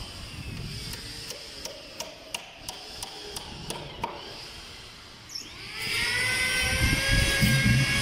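Light sharp clicks about three a second, then about five and a half seconds in an electric power tool's motor spins up with a rising whine and runs on steadily, louder than anything before it.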